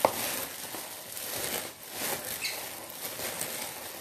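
Gloved hand kneading and squeezing cooked rice mixed with chopped chicken and cabbage, the thin plastic glove crinkling and rustling as it works the food.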